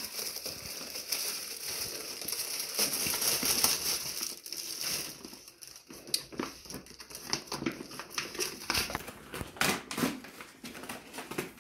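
Paper gift bag and wrapping paper rustling and crinkling irregularly as a wrapped gift is pulled out of the bag, quieter for a moment in the middle, with a few sharper crackles near the end.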